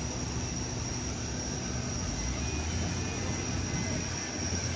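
Steady jet noise from a parked Airbus A350 on the airport apron: an even rush with a low hum and a constant high whine.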